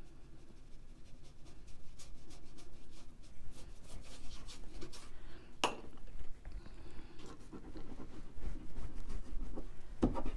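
Faint scratching and brushing of a paintbrush working paint on paper, with scattered small taps and one sharp click a little past halfway.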